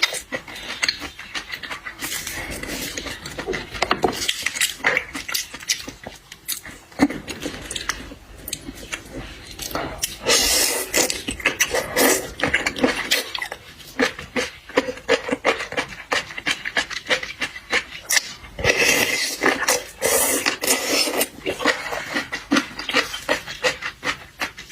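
Close-miked eating of seafood: wet chewing, slurping and smacking with irregular clicks, louder in two stretches about ten and twenty seconds in.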